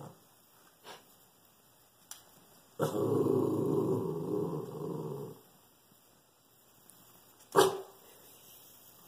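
Shih Tzu growling at the window for about two and a half seconds, then giving one sharp bark near the end.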